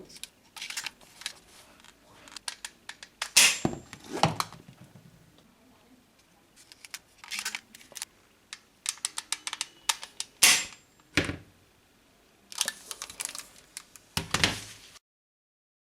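Irregular clusters of sharp plastic clicks, clatters and rustles from toys being handled; the sound cuts off suddenly near the end.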